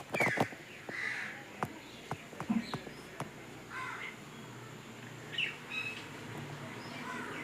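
A series of short animal calls, about six spread over several seconds, with a few sharp clicks among the first ones.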